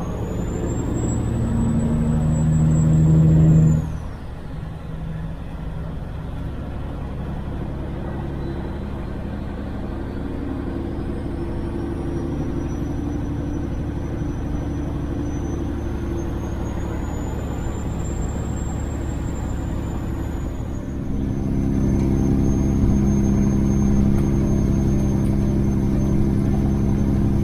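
Kenworth W900 semi truck's diesel engine running under way. It builds to about four seconds in, then drops off suddenly, runs steadily, and comes up louder again about three quarters of the way through, with a thin high whistle rising and falling over it.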